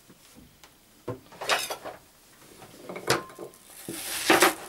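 Knocks and handling on a plastic cutting board, then a kitchen knife slicing into a peeled onion near the end, a crisp cutting sound.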